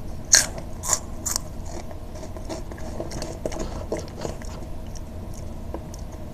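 Irregular small clicks and scrapes: three sharper clicks within the first second and a half, then fainter scattered ticks over a low steady hum.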